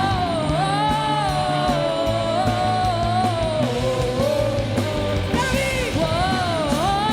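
Rock-style gospel band playing an instrumental break, a lead melody bending and sliding over the band.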